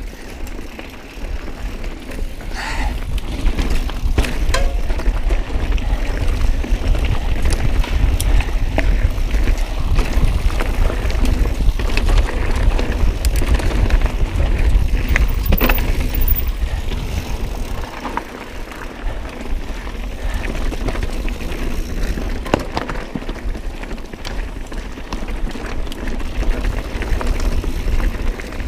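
Mountain bike riding over a rocky trail: a steady rumble of tyres on rock and wind on the microphone, with constant clicks and rattles from the chain and frame. It is loudest over the first half and eases somewhat after about eighteen seconds.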